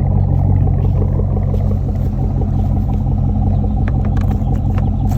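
Fifth-generation Chevrolet Camaro's engine idling steadily, a low even rumble, with a few faint clicks near the end.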